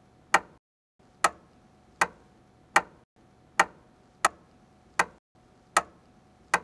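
Sharp, even clicks of a pen, about one every 0.8 seconds.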